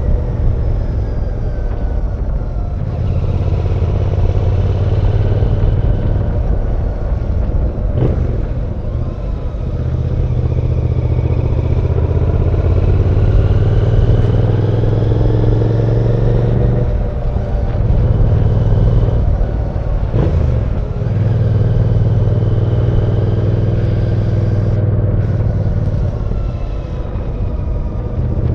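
Royal Enfield Bear 650's 648cc parallel-twin engine running under way, its pitch rising and falling repeatedly as the revs climb and drop, with a few brief dips where the throttle closes.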